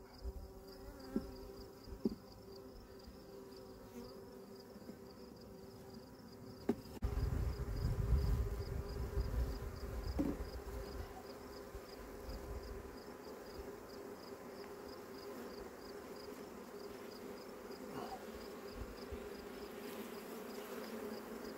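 Honeybees humming steadily around an opened hive box. A few short wooden clicks and knocks come as frames are lifted and moved in the box.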